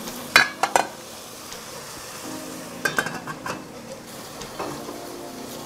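Wooden chopsticks clicking against a thin aluminium pot as soybean sprouts are tossed, over a steady sizzle of the sprouts cooking in perilla oil with little water. About three seconds in come a few more clinks as the aluminium lid goes back on the pot.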